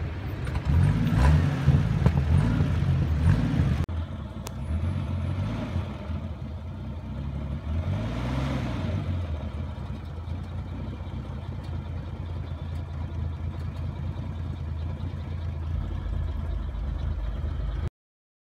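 Toyota FJ40 Land Cruiser engine working under load during an off-road hill climb, loudest in the first few seconds. After a cut about four seconds in it runs steadier, rising briefly around eight seconds, and the sound cuts off suddenly near the end.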